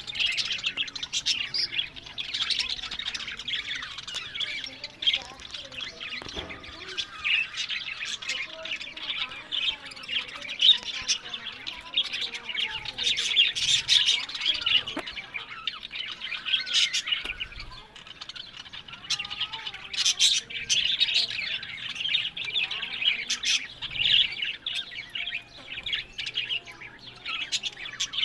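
Budgerigars chattering and chirping continuously, a dense run of rapid warbles, squawks and short clicks.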